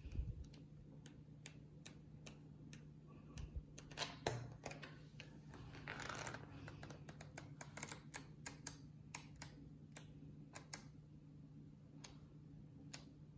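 Pages of a glossy magazine being handled and flipped by hand: soft paper rustles and many sharp ticks from the page edges, with a louder rustle around the middle as the magazine is closed and opened again. A faint steady low hum runs underneath.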